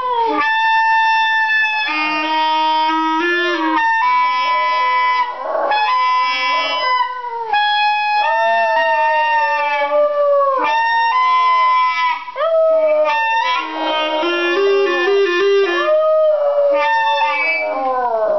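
A clarinet that needs repair, played with a poor embouchure, gives wavering held notes that change pitch every second or two. A small Bichon-type dog howls along, its howls gliding up and down over the notes.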